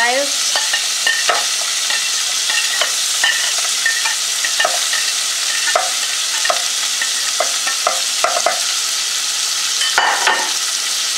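Chopped white onion sizzling in melted butter in a saucepan: a steady high frying hiss, with scattered light clicks and taps as the pieces are pushed off a plate into the pan, and a louder knock about ten seconds in.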